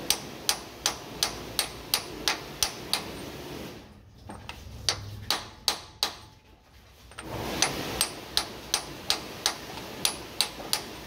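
Hammer blows on a steel socket used as a drift, tapping a new core plug into a Toyota 2H/12HT diesel engine block: sharp metallic knocks about three a second, lighter for a few seconds in the middle, then firm again.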